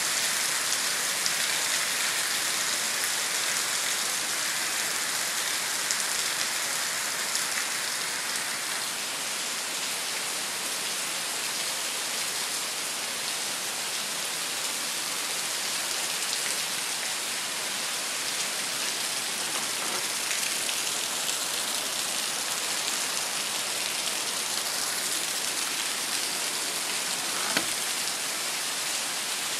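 Heavy rain falling steadily, an even hiss of drops on surfaces, with one sharp tick near the end.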